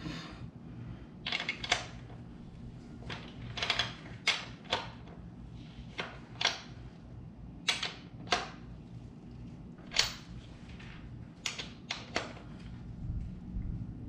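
Short, sharp metallic clicks and clinks, single or in pairs about half a second apart, from a wrench working the rear axle nut of a Kawasaki KLX140 tight. A low steady hum runs underneath.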